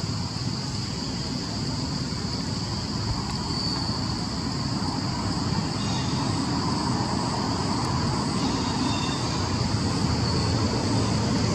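A steady, high-pitched insect drone over a low rumble that slowly grows louder.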